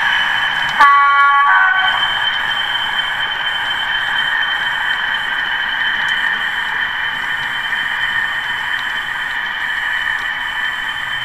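Model Class 40 diesel locomotive's Howes sound unit, sounding a short horn blast about a second in, then playing a steady diesel engine sound through the model's small speaker as the locomotive runs along the track.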